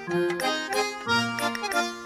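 Instrumental background music with a steady beat, its notes changing about twice a second.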